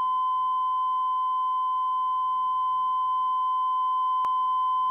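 Steady 1 kHz line-up test tone played with the colour bars at the head of a videotape, one unbroken pure tone at an even level. One brief click about four seconds in.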